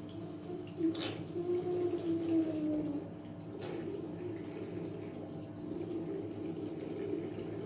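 Tap water running steadily into a bathroom sink basin, with a few short clicks and a brief pitched note that glides slightly down for about two seconds near the start.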